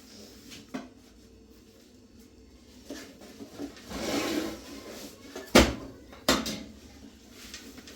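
Household handling noises: a short scraping rustle about four seconds in, then two sharp knocks a little under a second apart, like a cupboard door or a pot lid being shut.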